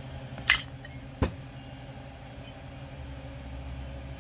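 Two sharp clicks about three-quarters of a second apart, from a small carburetor and a thin screwdriver being set down on a workbench, over a low steady hum.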